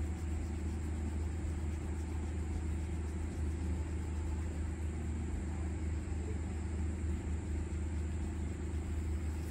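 Steady low hum and rumble of background noise, unchanging in level, with a faint hiss above it.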